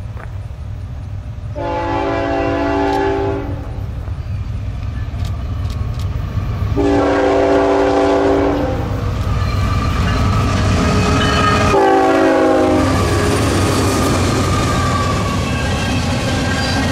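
Norfolk Southern GE ET44AC locomotive's Nathan K5HL five-chime air horn sounding two long blasts and then a short one, the opening of the grade-crossing signal, over the steady low rumble of the approaching train. Near the end the intermodal cars pass close by, their wheels clicking on the rails.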